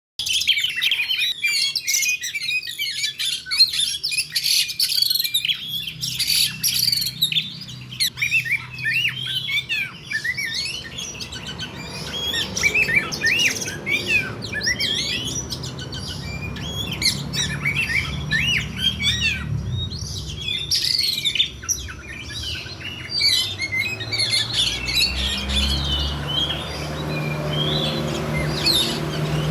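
Oriental magpie-robin (kacer) giving its fighting call: a fast, unbroken stream of sharp whistled chirps and harsh squawks. A low hum runs beneath it from about halfway on.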